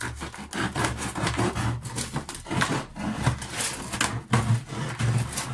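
Knife cutting through the thin plastic of a large water jug: a quick, irregular run of scrapes and crackles as the blade works along the plastic.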